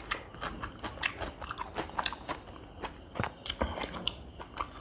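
Close-up mouth sounds of a person chewing a mouthful of rice and curry: a run of short wet clicks and lip smacks, several a second.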